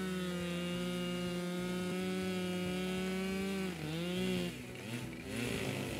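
Husqvarna two-stroke chainsaw cutting through a log at full throttle, its pitch held steady under load. About four seconds in the pitch dips, then swings up and down as the engine revs.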